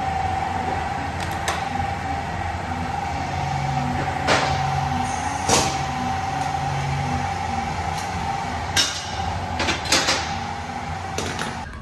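Car-shop work noise: a steady hum with a faint regular low pulse, broken by several sharp metallic clanks and knocks from tools and parts being handled.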